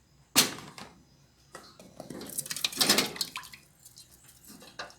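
A sharp clink, then hot cooking liquid dripping and splashing as a pressure-cooked beef tongue is lifted out of the pot.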